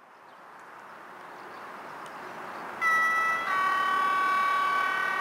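Electric locomotive horn sounding a long attention blast (the Rp1 warning signal) from a train approaching on the substitute signal. It starts about three seconds in and shifts to a different chord half a second later. Before it comes the steadily rising noise of the approaching train.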